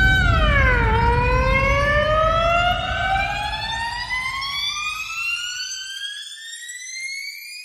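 Synthesized dub siren sound effect: a steady electronic tone that dips in pitch about a second in, then glides slowly upward while fading. A low rumble underneath dies away around six seconds in.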